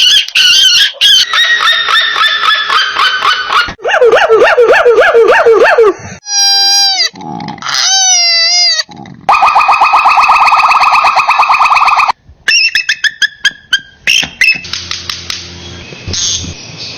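A run of different bird calls and songs cut together, changing every two to three seconds: repeated falling notes, wavering whistles, a fast trill and other rapid calls.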